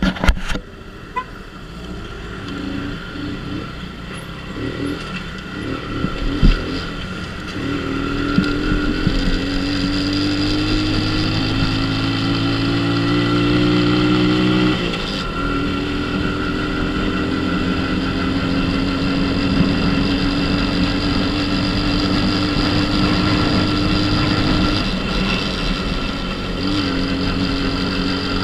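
Dafra Super 50cc small motorcycle engine pulling away and accelerating, its pitch rising steadily. About halfway the pitch drops sharply at a gear change, then climbs again more slowly, with another brief dip near the end.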